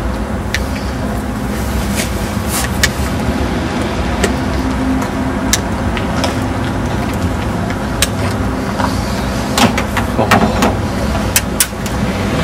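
Steady low hum of a car engine idling, with scattered sharp clicks and scrapes of a wire hanger being worked down between a car's window and door to reach the lock, several of them close together near the end.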